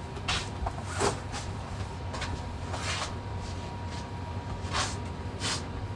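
Scattered soft knocks and rustles, about six in six seconds, over a low steady hum: someone moving about and handling things.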